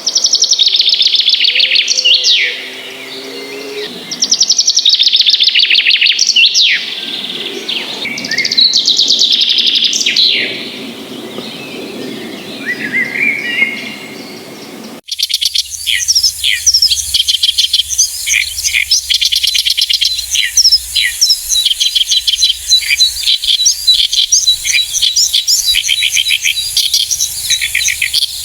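Songbird song: loud trilled phrases roughly every two seconds, several ending in a quick falling sweep. About halfway through it cuts abruptly to a different bird giving rapid, repeated high chirps over a faint low hum.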